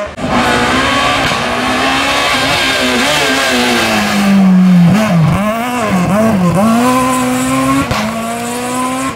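Rally car engine, likely the Renault Clio in view, revving hard. The engine note sinks, then swings sharply up and down several times about five seconds in as the car takes a corner, and then climbs steadily as it accelerates away.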